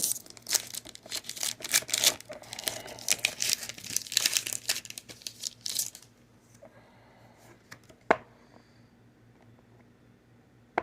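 Foil Pokémon card booster pack being torn open and crinkled, a dense crackling for about six seconds, then quiet apart from one sharp click a couple of seconds later.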